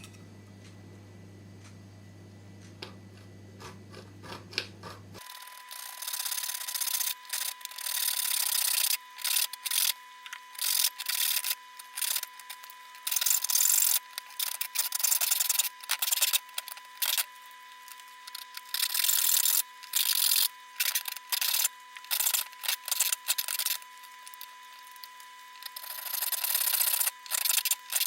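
Hand file scraping back and forth in uneven runs of strokes, a few a second. They start about five seconds in, after a low hum, and stop briefly a little past the middle before going on.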